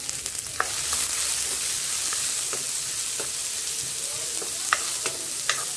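Chopped onion frying in hot oil with mustard seeds and urad dal in a metal kadai: a steady sizzle, stirred, with a few sharp clicks.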